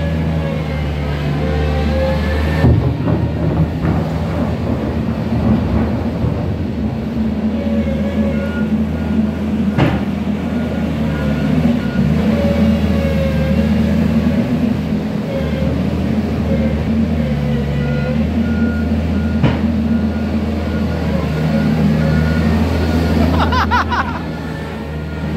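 Komatsu compact wheel loader's diesel engine running steadily, with its reversing alarm beeping in two stretches, from about a third of the way in and again through the last third. Two sharp clanks stand out, and there is a brief rattle near the end.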